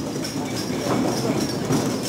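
Rhythmic clattering and jangling of metal fittings on a large mikoshi (portable shrine) as it is carried and jostled, over a hubbub of voices.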